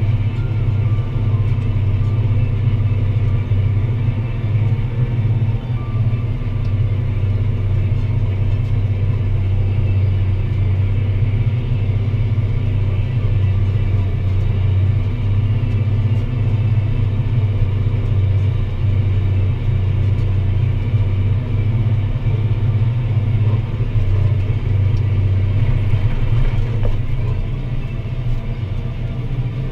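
Deutz-Fahr Agrotron 165 MK3 tractor's six-cylinder diesel engine running at a steady, even pitch under load while pulling a plough, easing off slightly near the end.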